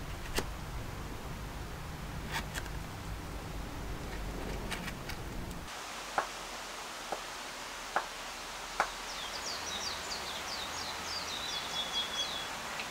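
Knife carving a pine block: sharp clicks and snicks of the blade cutting into the wood, a few at a time. From about nine seconds in, a bird sings a quick run of high notes ending in a trill.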